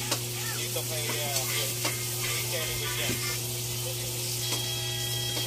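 Televised basketball game audio played through a TV set's speaker and picked up in the room: a hissing wash of arena crowd noise with faint voices, over a steady electrical hum. Near the middle the hiss thins and a few steady tones come in.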